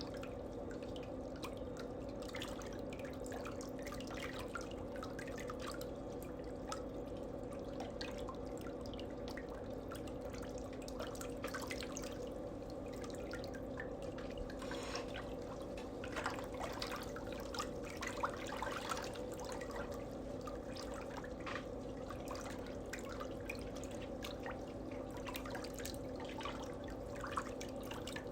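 Water dripping and splashing in small irregular drops during a pedicure foot wash, over a steady low hum.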